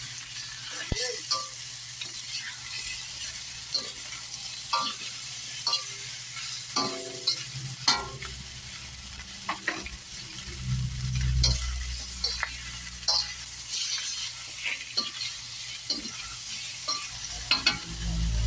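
Chicken pieces and vegetables sizzling in a hot kawali (wok-style pan) as they are stirred, with the spatula scraping and knocking against the pan every second or so.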